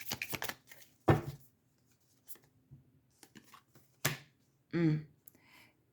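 Tarot cards being handled: a quick run of card clicks at the start, then a few sharp snaps and light taps of cards, with a short murmur from the reader near the end.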